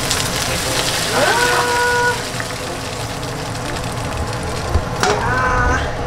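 Smoking-hot sesame oil poured over a steamed scorpionfish and shredded scallions, sizzling hard at first and slowly dying down. Voices let out a drawn-out "ooh" about a second in and again near the end.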